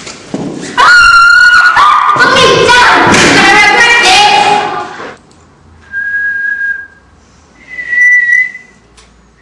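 A loud, high-pitched voice yelling for about four seconds, then a person whistling two single held notes a couple of seconds apart, the second a little higher.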